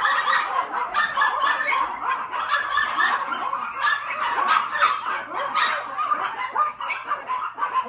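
A pack of small Chihuahua-type dogs barking and yipping all at once, a dense unbroken chorus of high-pitched yaps: excited greeting of their owner coming home.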